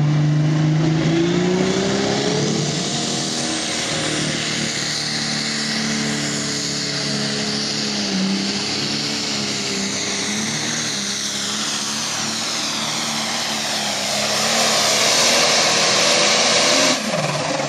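Pro stock pulling tractor's turbocharged diesel engine revving up and running flat out as it drags the weight-transfer sled down the track. It grows louder as the tractor nears, and the engine note drops off abruptly near the end.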